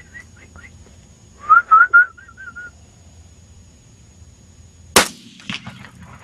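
A series of short, high, rising whistles, then a single loud rifle shot about five seconds in, followed by a fainter crack.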